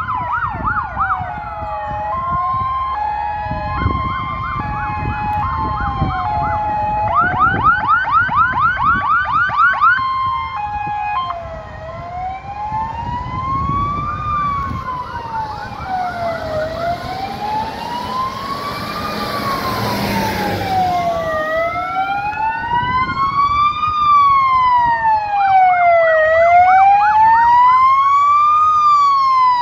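Sirens of several fire engines on an emergency run: slow rising-and-falling wails overlap with stretches of fast yelping and a stepped two-tone hi-lo pattern. The sirens grow louder near the end as the trucks approach.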